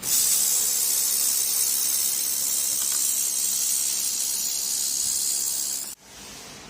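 Handheld fiber laser welder firing, a steady high hiss that cuts off suddenly about six seconds in.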